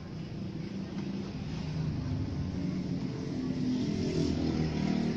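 A motor vehicle engine running nearby, growing louder over the first two seconds and then holding, its pitch wavering.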